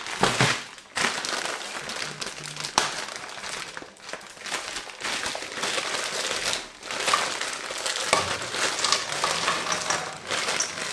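Plastic bag of potato and vegetable mix crinkling as it is handled and shaken out over a saucepan, with pieces dropping into the pan, a dense rustle broken by sharp clicks.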